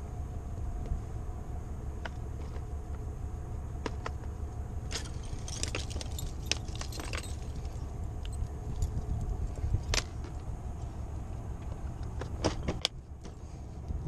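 Steady low rumble of a car on the move, heard from inside the cabin, with bursts of light metallic jingling and clicks around the middle and again near the end.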